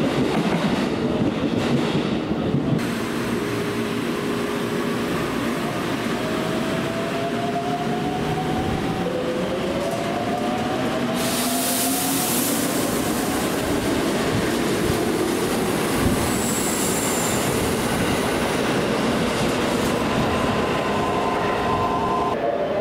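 Keikyu electric trains at a station: a train pulling out with rising whines from its traction motors as it gathers speed, over steady running and wheel noise. About halfway through comes a short hiss, and later a steady whine as another train stands or moves at the platform.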